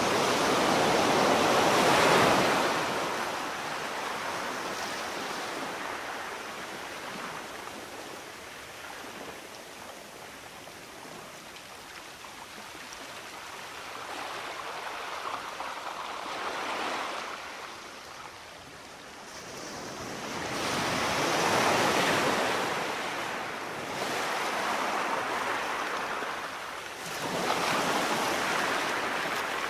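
Sea waves breaking and washing in, a steady hiss that swells and fades as each wave comes in. Four louder surges fall near the start, about halfway through, and twice near the end.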